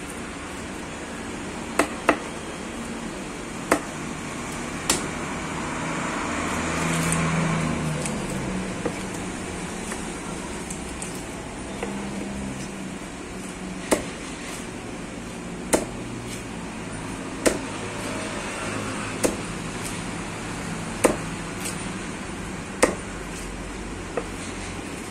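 Large curved knife chopping through a fish onto a wooden log block: single sharp knocks, a few early on and then one about every two seconds as the fish is cut into steaks. A steady background rumble swells and fades about a quarter of the way in.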